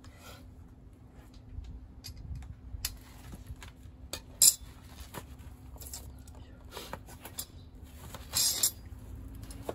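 Metal hand tools and small parts clinking as they are handled and set down: a string of light clicks, with a sharp louder clink about halfway through and a longer clatter near the end.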